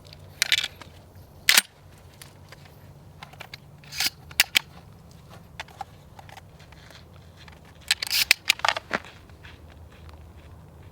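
A series of sharp clicks and clacks. The loudest comes about one and a half seconds in, with a few more around four seconds and a quick cluster around eight to nine seconds.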